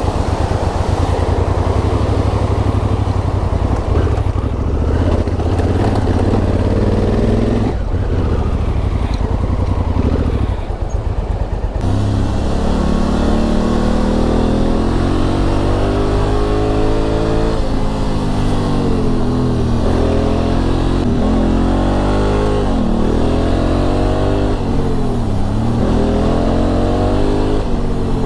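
Motorcycle engine running while being ridden, with wind and road noise over a low engine hum for the first twelve seconds or so. After that the engine note is clearer, rising and falling repeatedly with the throttle.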